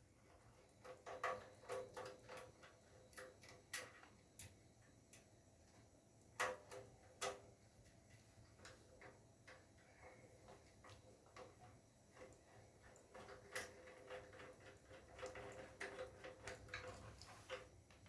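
Faint, irregular clicks and light taps of small hard objects being handled, with a few sharper ones about a second in, around six to seven seconds in, and again near the end.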